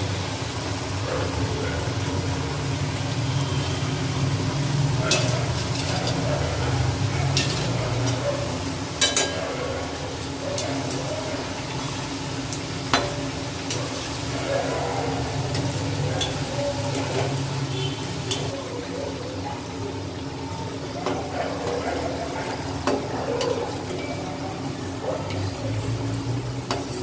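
Pithas of palm pulp and rice flour deep-frying in oil in a steel wok, a steady sizzle. Now and then a metal slotted spoon clinks sharply against the wok as the pithas are turned and lifted out.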